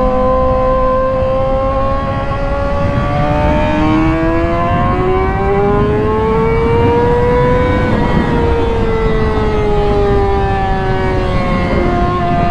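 2008 Honda CBR600RR's inline-four engine under way on track. Its pitch climbs smoothly to a peak about eight seconds in, then falls away under a steady low rushing noise, with a sudden pitch change near the end.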